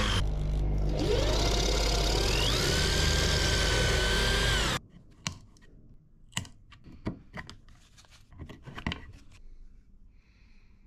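Power drill boring a dowel hole into a wooden stair tread, the motor's pitch rising and sagging under load, cutting off suddenly about five seconds in. Then a series of light taps and knocks as small dowels are worked in a steel plate with holes.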